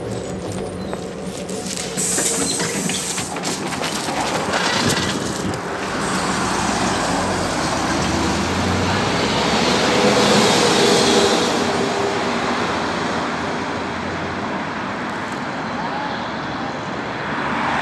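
PAZ 32054 bus pulling away and passing close by, its engine and tyre noise swelling to a peak about ten seconds in and then fading as it drives off, with street traffic behind.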